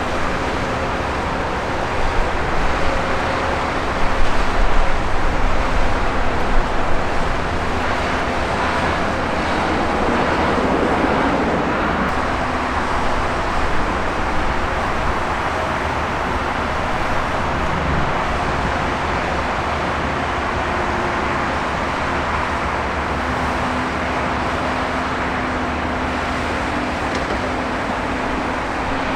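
Steady jet-engine noise from an arriving Boeing 787-8 airliner, mixed with a background hum of road traffic. The noise swells a few times between about two and seven seconds in.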